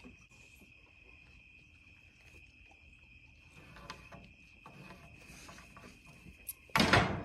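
Crickets chirping in a steady, high, even trill, with faint taps from handling a board. Near the end, one short, loud scrape or knock.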